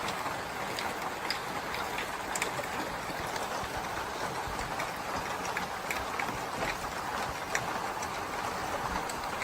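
Steady rain, an even hiss with scattered single drops clicking close by.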